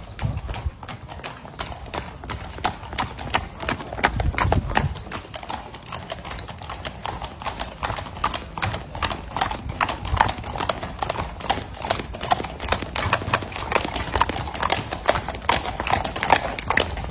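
Horses' hooves striking the ground: a quick, uneven clatter of many hoofbeats, several a second.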